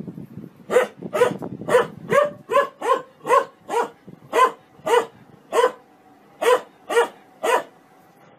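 A dog barking in a steady series of about fourteen short, sharp barks, roughly two a second, which stop about a second before the end.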